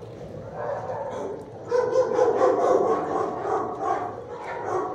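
Dogs barking in a shelter kennel: a fast run of overlapping barks that builds and turns loud about a second and a half in.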